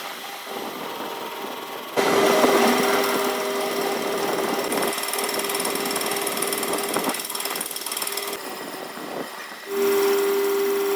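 Metalworking machine running: a steady whine and hum over grinding noise. It jumps abruptly louder about two seconds in and again near the end.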